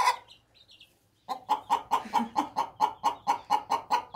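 A hen cackling in a fast, even run of short clucks, about six a second, starting a little over a second in after a brief lull: the agitated, complaining call of an upset hen.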